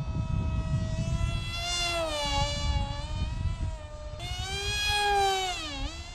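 Electric motor and propeller of a small 3D-printed RC flying wing whining in flight, the pitch rising and falling with throttle, then sweeping sharply down shortly before the end.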